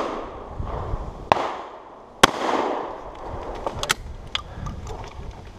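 Two shotgun shots about a second apart, each with an echoing tail, followed a couple of seconds later by a short run of light clicks.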